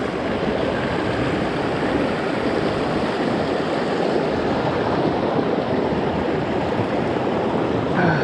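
Shallow, rocky mountain brook running over stones and small cascades: a steady rush of water.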